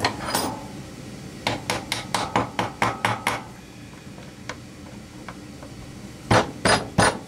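Hammer tapping on a screwdriver to knock apart a quarter-turn ceramic faucet cartridge. There is a quick run of about ten light taps, about five a second, then a pause, then three louder blows near the end.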